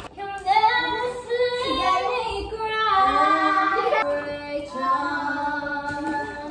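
High-pitched singing with music.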